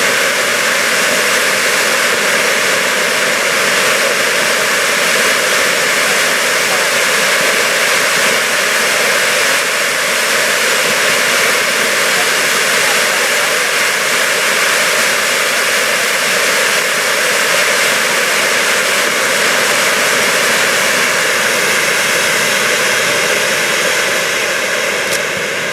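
A row of firework fountains burning together with a loud, steady rushing hiss. The noise falls away sharply near the end as the fountains burn out.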